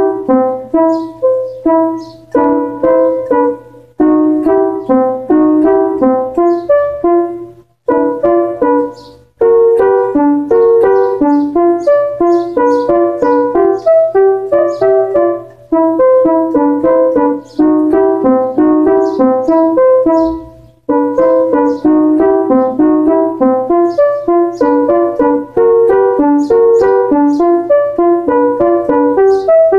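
Electronic keyboard set to a piano voice playing the song's piano part, a repeating phrase of quick notes broken by a few short pauses. A steady low hum sits underneath.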